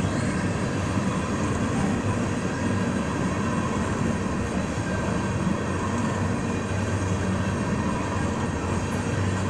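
Freight train of tank cars rolling past at about 30 mph: a steady, even noise of wheels on the rails.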